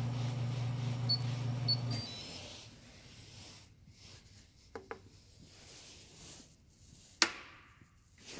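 JeioTech ISF shaker incubator control panel beeping shortly a few times as its touchscreen is pressed, while the unit's steady low machine hum runs and then cuts off about two seconds in. Two brief tones follow near the middle, and a single sharp click near the end is the loudest sound.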